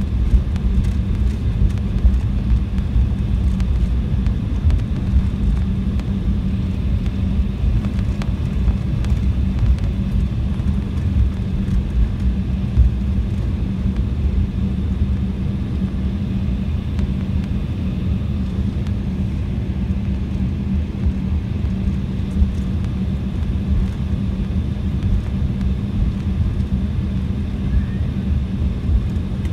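Cabin noise of an Embraer 190 jet taxiing: a steady low rumble and hum from its turbofan engines at taxi power, with a faint high whine over it.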